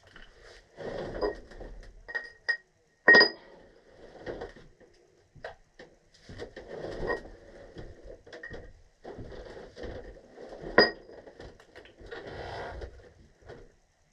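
Hand tools and metal parts being handled on gas piping: irregular scraping and rattling with short metallic clinks that ring briefly, the two sharpest about three seconds in and near eleven seconds.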